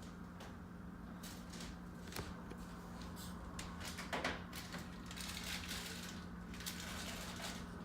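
Low room tone with a steady hum, a few faint clicks and brief rustles of handling.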